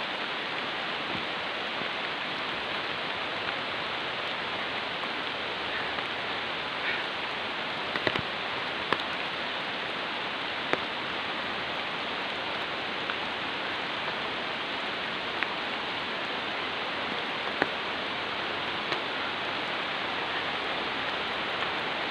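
Heavy rain falling, a steady hiss, with a few brief sharp taps scattered through.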